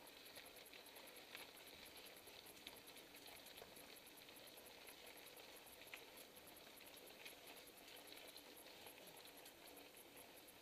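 Faint rolling and rattling of a mountain bike on rough, cracked asphalt, with a few light clicks.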